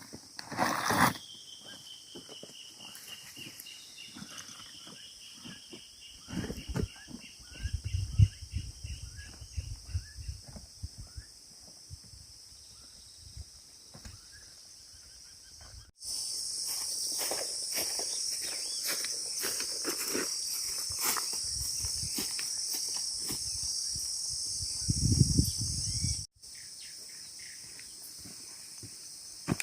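Forest ambience dominated by a steady high insect drone of cicadas or crickets. It is punctuated by footsteps and handling knocks in leaf litter, with heavier low thuds twice. Near the start a long falling trill descends over a few seconds.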